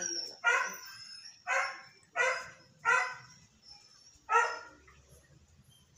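Small Shih Tzu barking five times in short, sharp barks, four in quick succession and a last one about a second and a half later.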